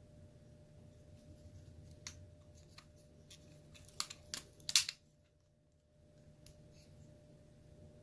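Sharp plastic clicks and clacks of a 3D-printed butterfly knife's handles being worked. There are a few scattered clicks, then a quick cluster of clacks about four to five seconds in, the last of them the loudest.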